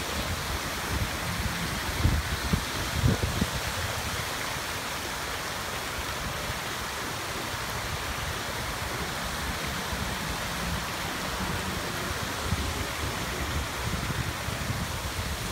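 Heavy rain pouring down on streets and buildings, a steady even hiss of falling and running water. A few brief low thuds sound about two to three seconds in.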